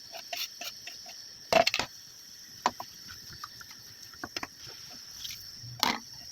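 Scattered light clicks and knocks at an irregular pace, with a louder cluster of knocks about one and a half seconds in and another near the end.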